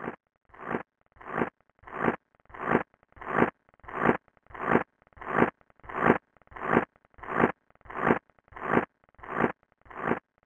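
A rhythmic scraping sound: even strokes about one and a half a second, each swelling and then stopping short.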